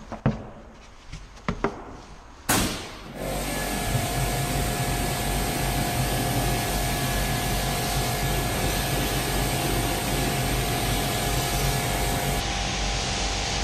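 A few scattered knocks, then about two and a half seconds in a pressure washer (jet wash) starts spraying. Its steady hissing jet hits the bus's rear window and bodywork over the hum and whine of the machine, and keeps running.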